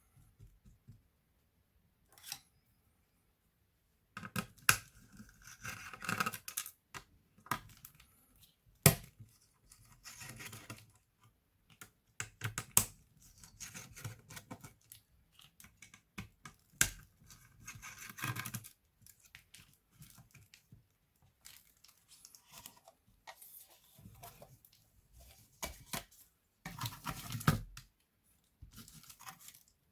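Hands working on an Acer Aspire 5733 laptop opened up for repair: irregular sharp clicks among stretches of scraping and rustling.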